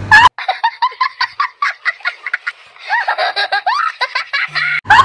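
A young boy laughing hard: a long run of short, high-pitched bursts of laughter, several a second, that stops suddenly near the end.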